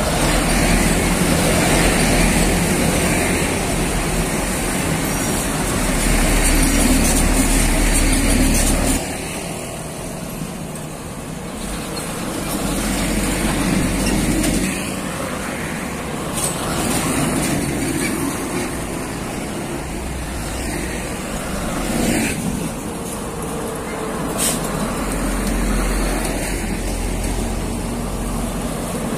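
Heavy trucks and cars passing close by on a busy road, their engines and tyres making a steady traffic noise. It is loudest in the first nine seconds as a large box truck goes by, drops sharply, then rises and falls again as more vehicles pass.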